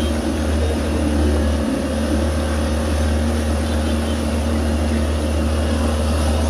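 A 55 hp outboard motor running steadily, pushing the boat along with a constant low drone over the rush of its propeller wash.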